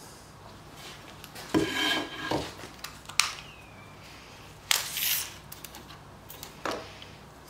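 A wooden strip knocked down onto an MDF workbench with a brief clatter, then a sharp click. Just before five seconds a steel tape measure's blade is pulled out along the board with a short hiss, and near the end there is a smaller handling noise.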